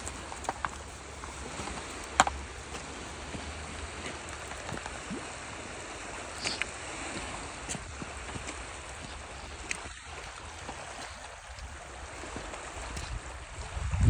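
Steady rush of flowing stream water, with a few scattered light clicks.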